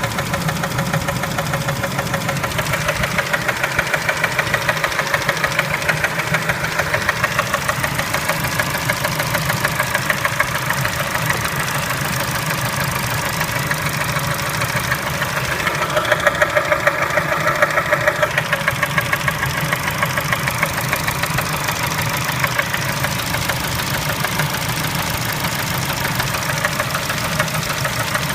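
Kia Spectra engine running with a fast, regular knock. The knock is the engine fault being shown. It grows a little louder for a couple of seconds a little over halfway through.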